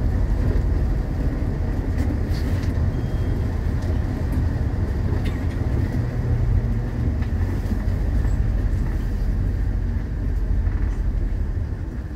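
MAZ-216 city bus driving along a street, heard from inside the cabin: a steady low engine and drivetrain rumble mixed with road noise.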